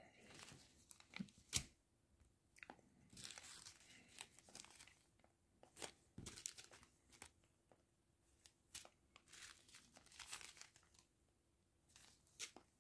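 Faint crinkling and scattered sharp ticks of small plastic zip-lock bags of diamond-painting drills being handled and sorted, in short irregular bursts.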